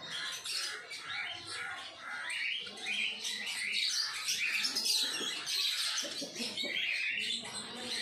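House sparrows, a mated pair at their nest, chirping in quick runs of short notes without a break.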